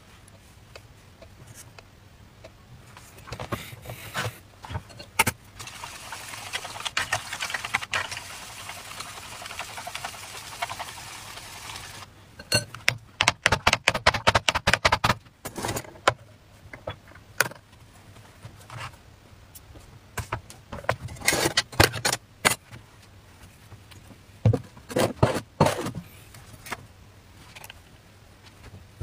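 Knocks, clicks and clatter of a pink pan and an electric cake maker being handled on a wooden table, including a fast run of rattling clicks about halfway through. A steady hiss lasts several seconds in the first half.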